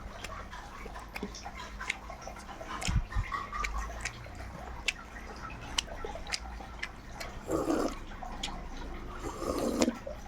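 A person eating close to the microphone: wet chewing and lip-smacking, with many quick sharp mouth clicks and, near the end, two short low murmuring sounds.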